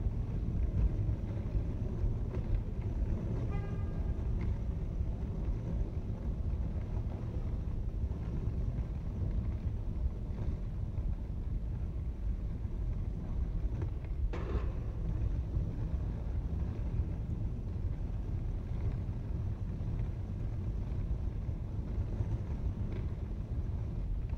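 Steady low rumble of background noise in a covered multi-storey parking garage. A short beep comes a few seconds in, and a brief sharp knock comes about halfway through.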